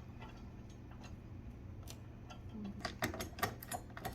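Small sharp clicks and taps of metal mounting hardware (screw, washer and bracket) being handled while a screw is being fitted. The clicks come thickest about three seconds in, over a faint steady low hum.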